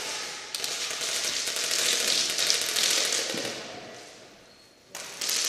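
Rapid, overlapping shots from several players' game guns in an indoor close-quarters match, echoing around a large hall. The firing fades away about four seconds in, then breaks out again suddenly near the end.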